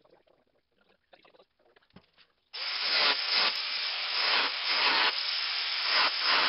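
Angle grinder switching on about two and a half seconds in and grinding against the steel shell of a well-water pressure tank, loud and harsh, its level wavering as the disc is worked over the metal. Faint handling knocks before it.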